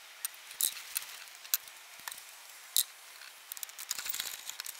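Glued hardwood strips knocking and clicking against each other as they are handled and pressed together into a stack: a few separate sharp knocks, then a quicker run of small clicks near the end.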